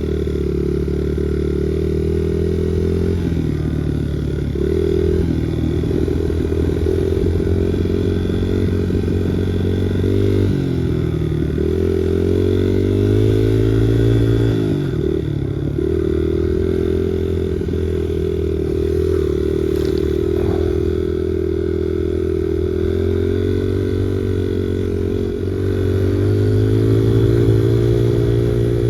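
Small Honda motorcycle engine running under way, its pitch dipping and climbing again about ten and fifteen seconds in.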